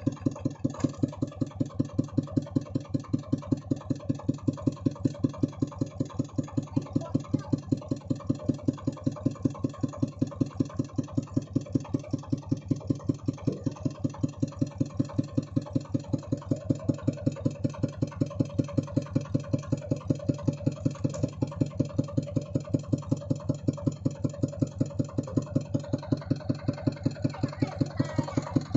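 Kubota RV145 single-cylinder diesel on a two-wheel walking tractor idling, with a steady, even beat of firing pulses.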